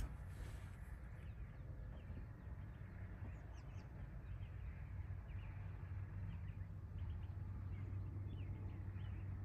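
Quiet ambience of birds chirping and calling, over a low, steady rumble of distant road traffic.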